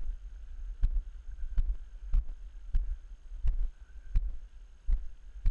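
Footsteps of a person walking through grass and brush, about one and a half steps a second, heard as dull regular thumps through a body-worn action camera, over a steady low rumble.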